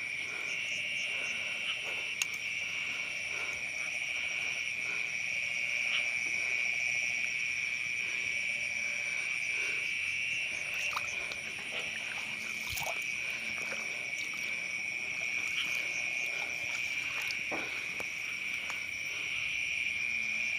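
A chorus of night insects making a steady, shrill trill, with a few faint clicks now and then.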